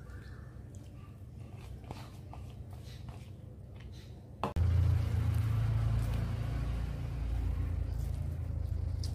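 Soft squishing and light clicks of fingers mixing rice and curry on a metal plate. About halfway through, a click is followed by a sudden, loud, steady low rumble that carries on and drowns out the hand sounds.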